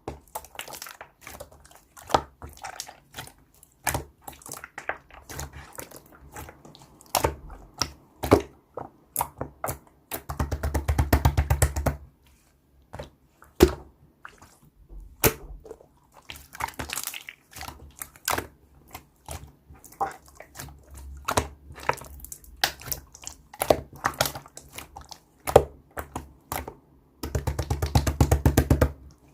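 Clear slime being squished, poked and pressed by hand, making irregular wet clicks and small pops. Twice, once near the middle and once near the end, there is a run of rapid crackling pops lasting under two seconds.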